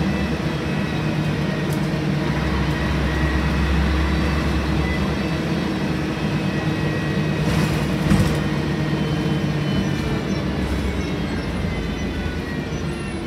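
Scania L113CRL bus's six-cylinder diesel engine running steadily, heard from inside the passenger cabin together with the bus's general cabin noise. A single thump comes about eight seconds in.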